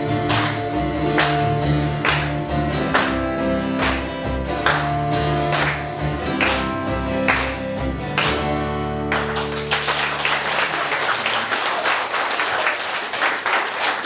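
Acoustic guitars strumming chords over upright double bass notes to the end of a song; about nine seconds in the music stops and the audience breaks into applause.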